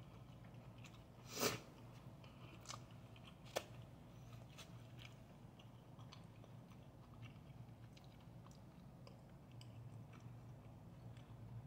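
A person chewing a mouthful of fried rice, faint and close: soft scattered mouth clicks and smacks. One louder brief noise comes about a second and a half in, and a sharp click about two seconds later.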